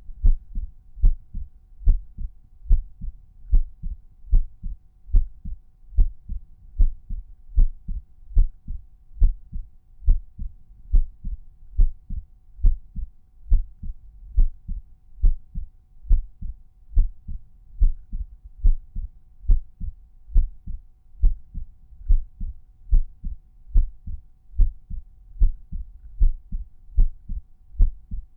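Resting human heartbeat heard at the tricuspid auscultation point: a steady, regular lub-dub, a loud thump followed by a softer one, a little faster than one beat a second.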